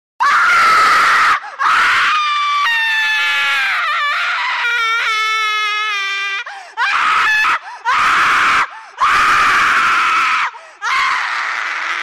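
Horror ringtone: a string of about eight loud screams, each breaking off sharply. The ones in the middle are held, wavering wails with a clear pitch that sags; the rest are harsher and rougher.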